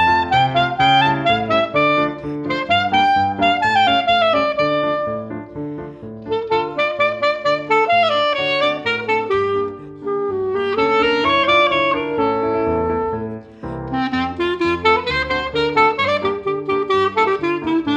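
Clarinet playing a traditional klezmer melody over piano accompaniment, with a brief break in the phrase about two-thirds of the way through.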